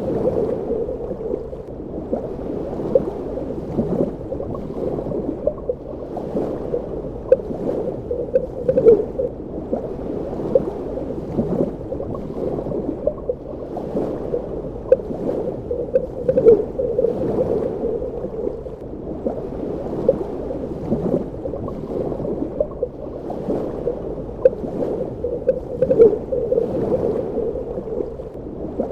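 Underwater ambience: continuous muffled gurgling of water, with frequent short pops and swells at irregular intervals.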